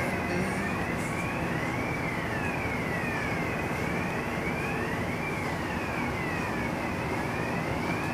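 A siren wailing, its pitch sliding up and down about every two seconds, over a steady rumble.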